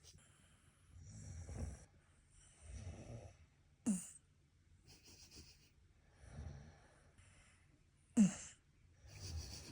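Shiba Inu snoring in its sleep: a breath noise roughly every second to second and a half, with two sudden loud catches that drop in pitch, about four seconds apart.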